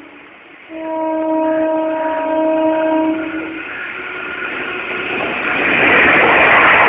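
Electric locomotive horn, a WAG-5A's, sounding one long blast of about two and a half seconds starting about a second in. The rushing noise of the approaching express train then grows steadily louder toward the end.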